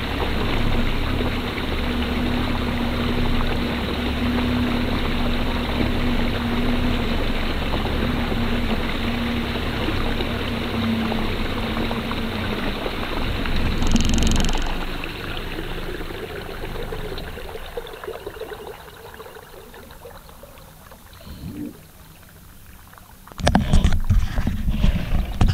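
Boat outboard motor running steadily under a wash of water and air noise. Its hum stops a little past halfway after a short swell, and the sound falls away to a quiet wash. Near the end, loud gusts of wind buffet the microphone.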